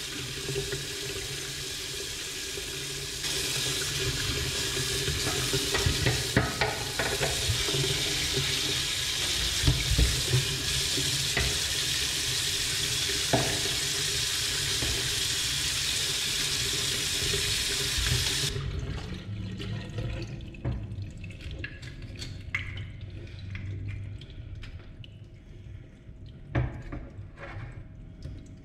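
Kitchen tap running onto raw fish in a stainless steel sink, splashing as the fish is rubbed clean under the stream. The water stops abruptly about two-thirds of the way through, leaving quieter scraping and knocks as the fish is handled with a knife at the sink.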